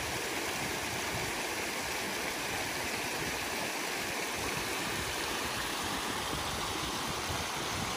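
Shallow mountain stream rushing steadily over rocks, a constant watery rush.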